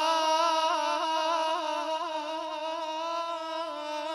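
A male radood (Shia lament reciter) holds one long sung note, unaccompanied, with a slight waver, slowly fading toward the end.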